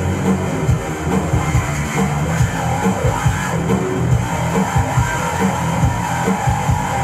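Heavy metal music: an electric bass playing a fast, low bass line along with a metal backing track with drums.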